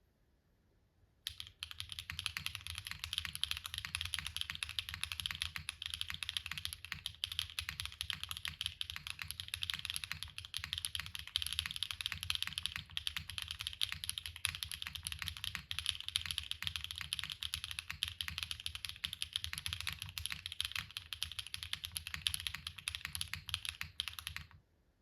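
Neo 70 mechanical keyboard being typed on: factory-lubed HMX Xinhai switches under GMK keycaps, on a POM plate with O-ring mount and plate and case foam. Fast, continuous typing starts about a second in and stops shortly before the end.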